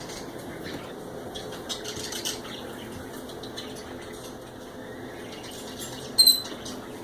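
A pet bird, likely a parrot, gives one short, clear whistled chirp about six seconds in, over steady background noise with a few faint clicks a couple of seconds in.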